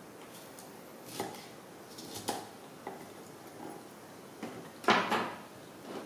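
Kitchen knife slicing a green bell pepper on a thick wooden chopping block: a few light, separate knocks, then a louder short clatter about five seconds in.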